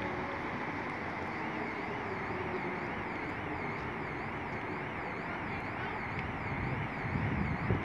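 Steady outdoor wind and road-traffic noise. Over it, a faint alarm tone sweeps up and down about twice a second, and a louder low rumble swells near the end.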